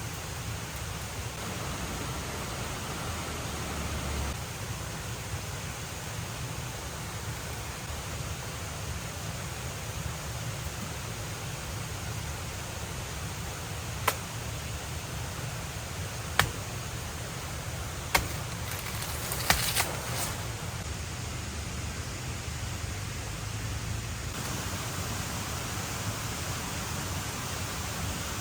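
Steady rushing background noise with a low rumble underneath, broken about halfway through by four or five sharp clicks or knocks a second or two apart.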